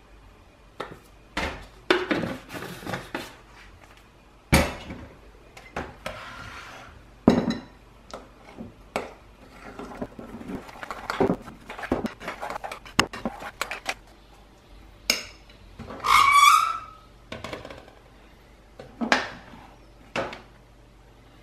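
A spoon clinking and scraping against a glass bowl as oats, whey protein and cocoa powder are stirred together, in many separate knocks and clicks. About two-thirds of the way through comes one longer, squeaky scrape.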